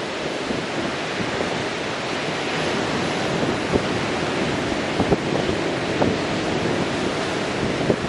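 Ocean surf breaking and washing onto a sandy beach, a steady rush of noise, with wind buffeting the microphone in a few short low thumps around the middle.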